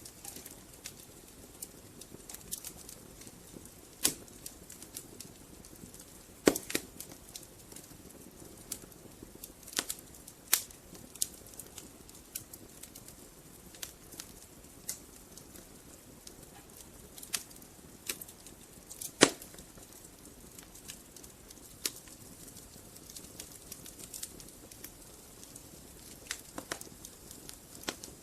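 Wood fire burning in a fireplace: logs crackling with irregular sharp pops over a soft steady hiss, the loudest pops about six and nineteen seconds in.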